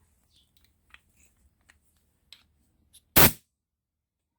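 Compressed-air blow gun giving one short, loud blast into a clutch slave cylinder about three seconds in, to blow out the stuck piston and seals; a few light clicks of handling come before it.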